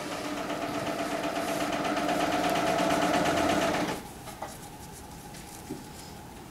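Electric sewing machine running at speed, a fast even needle stroke over a motor hum, growing a little louder and then stopping abruptly about four seconds in.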